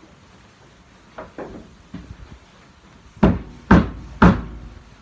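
A few soft knocks, then three loud, sharp knocks about half a second apart.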